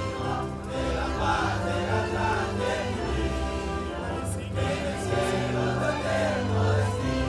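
Choral music: a choir singing held, gliding notes over steady low accompaniment.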